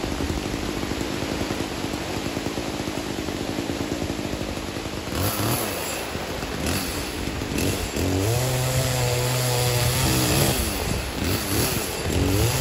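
A small engine running with an uneven, fluttering idle, then revved up and held at high speed for about two seconds, about eight seconds in, and revved again just before the end.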